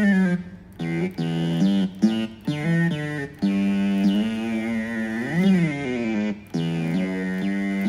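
Roland GR-20 guitar synthesizer played from a guitar: a line of single sustained notes with short breaks between them, and a long held note bent up and back down about five seconds in.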